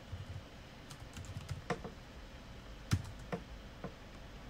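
Computer keyboard keys clicking during typing: scattered single keystrokes at an uneven pace, one louder than the rest about three seconds in.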